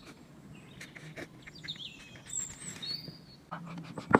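Small birds chirping in the background, with scattered clicks of chopsticks and mouth sounds of eating. A single sharp knock near the end is the loudest sound.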